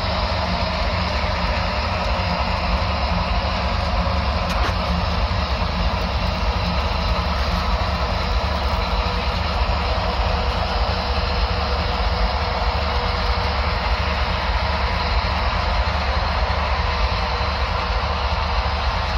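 HO scale model trains running on the track: a steady whirr of small locomotive motors and wheels rolling on the rails, with a low hum underneath.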